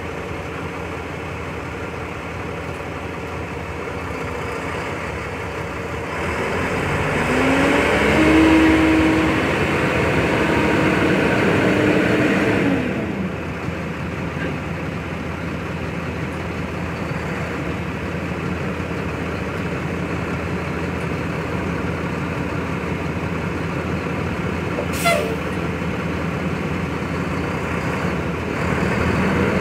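A 2004 Mack dump truck's diesel engine runs as the truck drives. Its note rises as it pulls away and holds for several seconds before dropping back to a steady low run. There is a brief sharp hiss of air about five seconds before the end, and the engine picks up again near the end.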